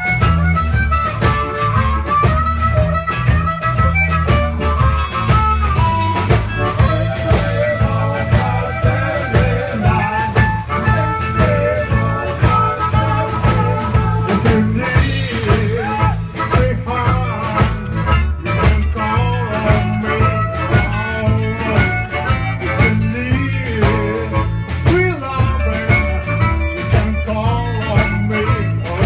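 Live blues band playing: amplified harmonica cupped to a microphone, with bending melody lines over electric bass, electric guitar and a steady drum beat.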